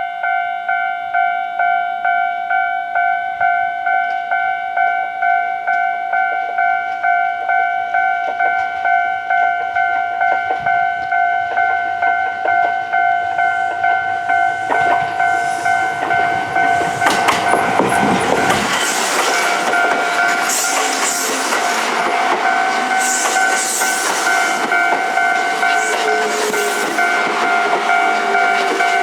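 Japanese railway level-crossing alarm ringing, a steady clang repeated at an even pace. About halfway in, a Kintetsu limited express electric train comes through the crossing: a rising rush of wheel and running noise with rapid clacking over the rail joints, loudest a few seconds after it starts, while the alarm keeps ringing.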